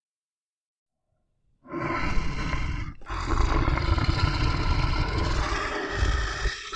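Bear growling. After about a second and a half of silence, a long, rough, deep growl starts, breaks briefly, and goes on in a second long growl that fades near the end.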